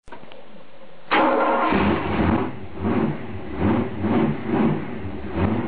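A newly built carbureted V8 fires up suddenly about a second in and is then revved up and down by hand at the throttle linkage, rising and falling about once a second, during its break-in run.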